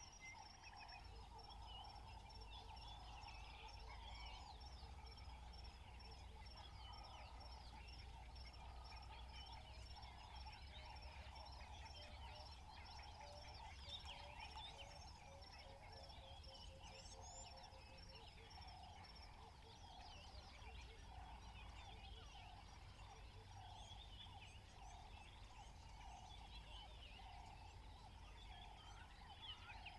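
Faint natural outdoor ambience: many small birds chirping, a steady high trill running throughout, and a low rumble underneath.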